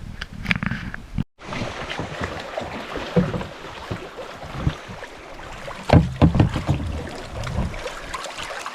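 Canoes being loaded and launched at the water's edge: scattered knocks and bumps against the hulls with water sloshing, over wind noise on the microphone. The loudest knocks come about six seconds in.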